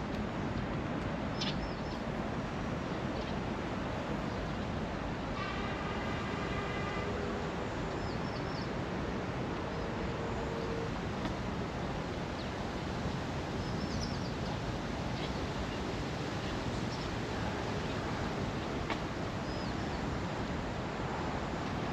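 Outdoor park ambience: a steady wash of background noise with short, high bird chirps every few seconds, and one longer pitched call about six seconds in.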